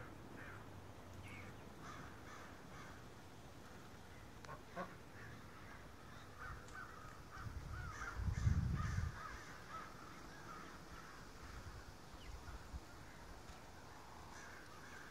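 Faint, scattered bird calls, short chattering notes, with a brief low rumble about eight seconds in.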